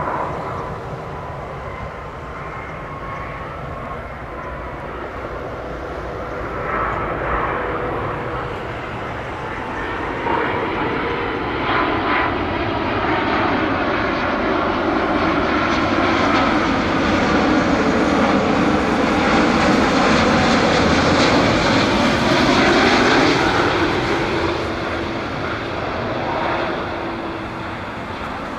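Airbus A330 airliner on landing approach, its Rolls-Royce Trent 700 turbofans giving a steady jet rumble with a whine. The sound grows louder as the jet comes closer, peaks about three-quarters of the way through, then eases off as it passes, the whine slowly dropping in pitch.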